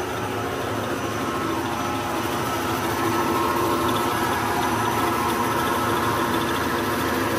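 Plastic-processing factory machinery running: a steady mechanical hum with several steady tones over it.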